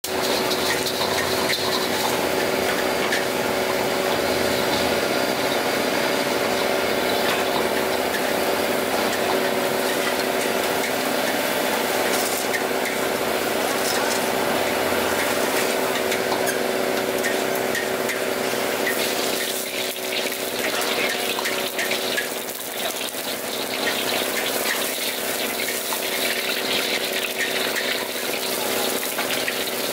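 High-pressure gas wok burner running at full flame under an empty wok, a steady rushing noise with a low hum under it. It eases slightly about two-thirds of the way through.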